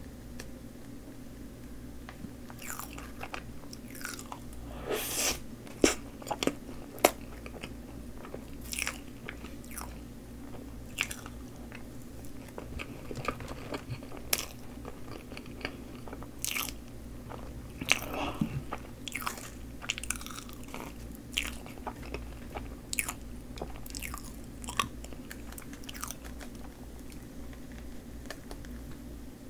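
Close-miked chewing of soft Choco Pie dipped in whipped cream: irregular wet smacks and clicks of the mouth and lips, a few much louder than the rest, over a steady low hum.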